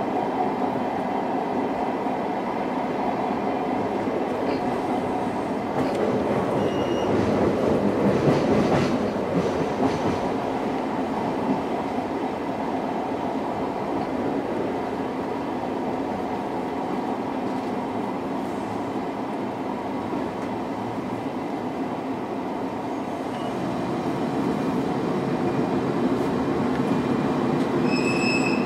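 Running noise heard inside an old-type SuHaFu 42 passenger coach drawn by an electric locomotive: a steady rumble of wheels on the rails, swelling louder for a few seconds about a quarter of the way in, with a brief high squeal from the wheels or brakes near the end.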